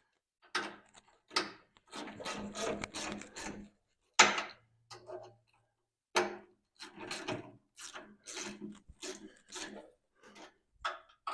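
Hand ratchet worked in quick back-and-forth strokes, each stroke a short rasping burst of clicks, as a vise is fastened back onto a receiver hitch mount. The strokes run irregularly at first, with a louder clack about four seconds in, then settle to about two a second.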